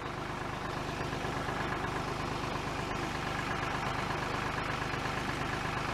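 An engine idling steadily, an even hum with no change in speed.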